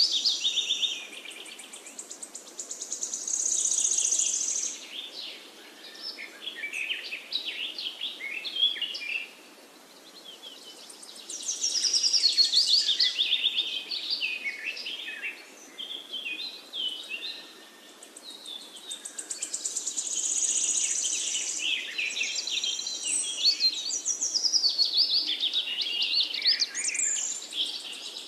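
A songbird singing in repeated phrases of quick chirps and trills, a burst every several seconds, over a faint steady hiss.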